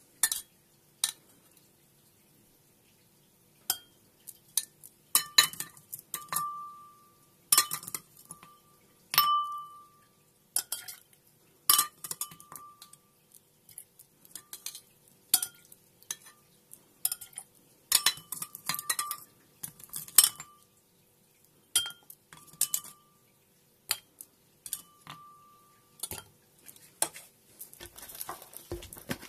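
Irregular clinks and knocks against a tall drinking glass as lemon pieces and ice cubes are put into a whisky drink and stirred, many knocks leaving a brief ringing tone from the glass.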